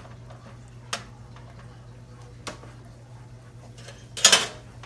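Silicone whisk stirring butter sauce in a skillet: a few faint clicks of the whisk against the pan over a steady low hum. About four seconds in, a short, loud scrape as the skillet is gripped and shifted on the stove.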